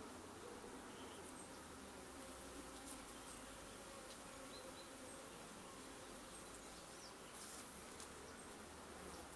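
Honeybees buzzing faintly around an open hive and a bee-covered brood frame: a soft, steady hum.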